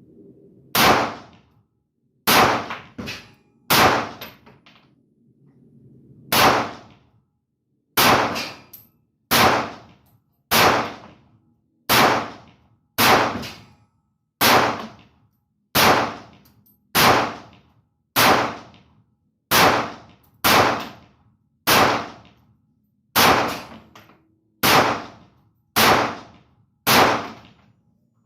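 Semi-automatic shots from a Verney-Carron Lebel AR-15 rifle, about twenty rounds fired at a steady pace of roughly one a second, each crack trailing off in a short echo.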